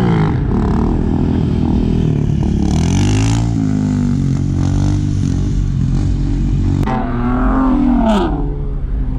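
Motorcycle and car engines revving and accelerating past. The pitch swings up and down, with a hard run of revs about two seconds before the end.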